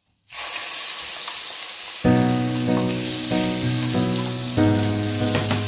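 Food sizzling and frying in hot oil in a pan; the sizzle starts suddenly, as when the food goes into the oil. Background music with held chords comes in about two seconds in.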